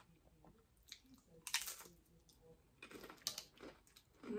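Close-up chewing and crunching of a crunchy Jack in the Box taco, with sharp crackling bites. The loudest crunch comes about one and a half seconds in and more follow around three seconds in. A short hummed voice sounds at the very end.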